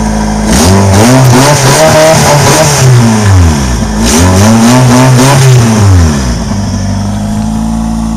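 Honda Prelude four-cylinder engine idling, then revved twice, each rev rising and falling back before it settles to idle again, its exhaust sounding through a bad exhaust leak.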